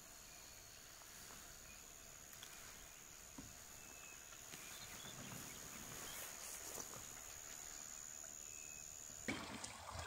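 Faint bush ambience dominated by a steady high-pitched insect drone. Shortly before the end the drone stops and louder water sloshing and splashing begins, from elephants wading in a river.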